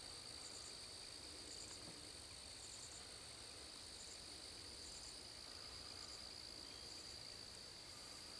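Faint chorus of night insects, crickets trilling: a steady high-pitched drone, with short clusters of chirps repeating about once a second.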